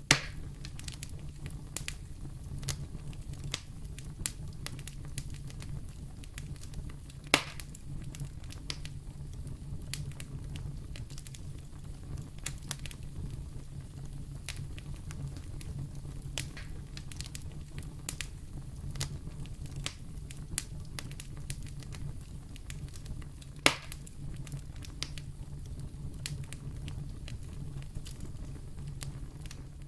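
Wood fire burning in a fireplace: a steady low rumble of flames under frequent small crackles, with three louder pops, one at the start, one about 7 seconds in and one about 24 seconds in.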